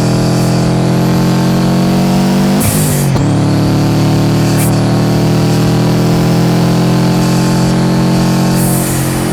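1998 Subaru Impreza GC8's turbocharged EJ207 flat-four boxer engine with straight-pipe exhaust, pulling hard through the gears: the revs climb, break at a gear change about two and a half seconds in with a short hiss from the Forge blow-off valve, then climb again to a second blow-off hiss near the end. A faint rising turbo whistle sits above the engine note.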